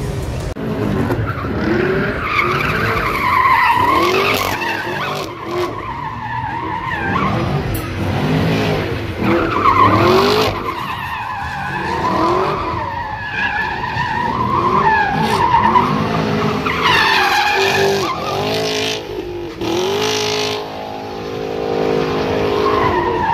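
A car doing donuts in a burnout box, its engine revving up and falling back again and again while its spinning tires squeal and skid on the pavement.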